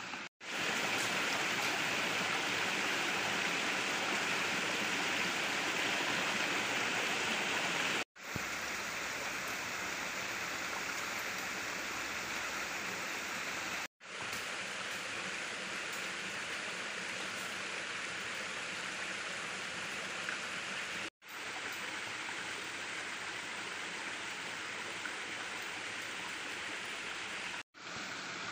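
A small rocky stream spilling over a low waterfall: a steady rush of flowing water that cuts out for a moment five times.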